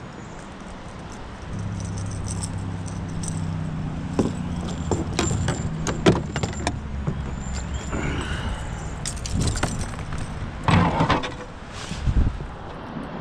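Scattered clicks and rattles, loudest near the end, from a caught smallmouth bass and fishing gear being handled in a plastic fishing kayak, over a low steady hum.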